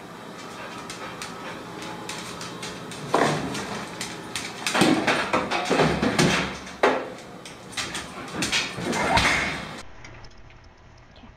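Metal clattering and knocking from an open oven door as a dog tugs at it and noses into the oven. The knocks come irregularly, loudest in the middle, and the sound drops away to something much quieter near the end.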